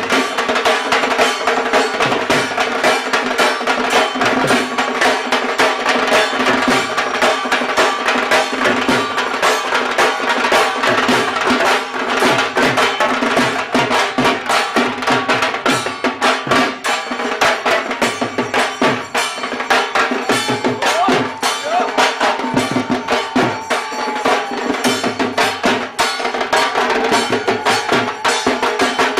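Fast, unbroken percussion for a Hindu evening aarti: drums and struck metal beaten rapidly without pause over a steady ringing tone.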